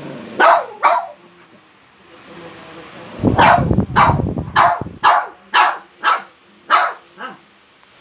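Shih tzu barking: two barks near the start, then after a pause a run of about eight sharp barks, roughly two a second, the last one weaker. A low rumble sits under the first barks of the run.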